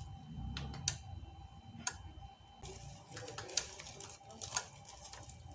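A handful of faint, sharp clicks about a second apart, with light rustling: the buttons of a motorcycle alarm's remote being pressed and handled while the alarm is tested.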